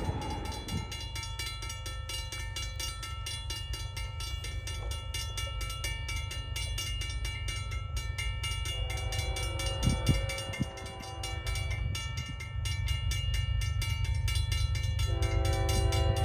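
Railroad grade-crossing bell ringing rapidly and steadily with its gates down, over a low steady rumble. An approaching train's horn sounds in the distance, a chord of several notes, first faintly about nine seconds in and louder near the end.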